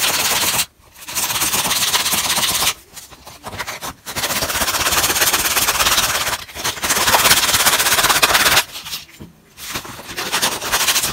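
A carved wooden lure body is rubbed back and forth by hand on a sheet of sandpaper to round off its sharp edges. It makes a loud, scratchy rasp in several stretches of a second or two, with short pauses between them.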